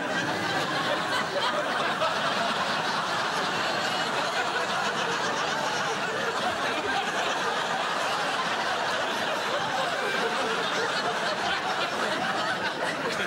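Studio audience laughing continuously.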